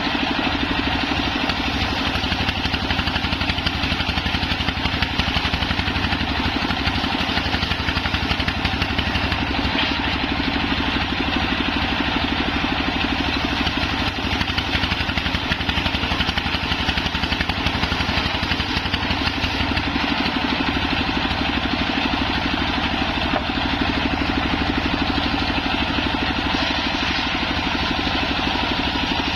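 Engine of a homemade circular saw bench running steadily.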